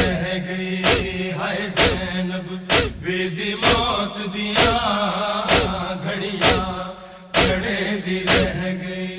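Male voices of a noha party chanting a mourning lament together, over a heavy beat just under once a second: the hand-on-chest matam that keeps the noha's rhythm.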